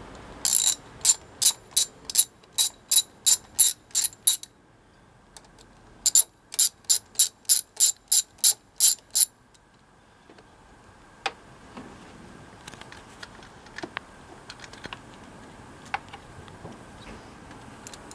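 Socket ratchet with a 10 mm socket clicking as it is worked to undo the engine cover's fixings: two runs of evenly spaced clicks, about two to three a second, with a short pause between them. A few light knocks follow near the end.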